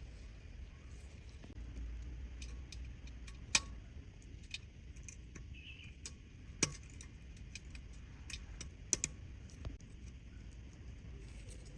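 Small metallic clicks and taps, irregular and scattered, from tools and tiny parts being handled during watch repair, with a few sharper clicks about a third, halfway and three quarters of the way through. A low steady hum runs underneath.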